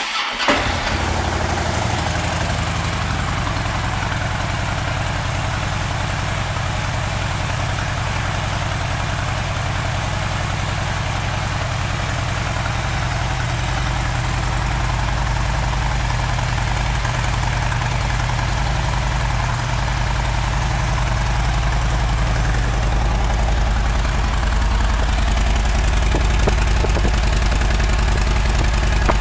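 2006 Harley-Davidson Street Bob's fuel-injected Twin Cam 88 V-twin starting up and settling into a steady idle through what sounds like the standard exhaust. It grows a little louder near the end, close to the mufflers.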